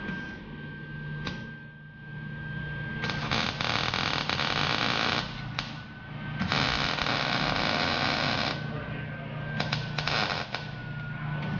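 A steady hum with a thin high whine, broken twice by a loud hiss lasting about two seconds, with a few sharp clicks in between.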